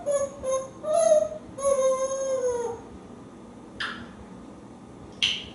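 African grey parrot making a run of short, whining whistle-like calls, the last one longer and falling in pitch, followed by two short sharp sounds.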